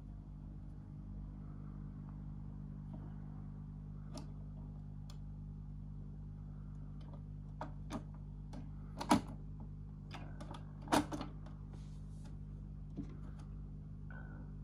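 Clicks and knocks from a Philips record player's tonearm and cartridge being handled, over a steady low electrical hum from the switched-on player. The clicks are scattered, with two louder knocks a couple of seconds apart near the middle.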